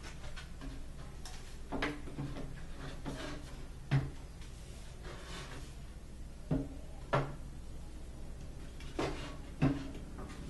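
Irregular wooden knocks and clunks from parts of a flat-pack dresser frame being handled and fitted, about six sharp ones spread unevenly over ten seconds.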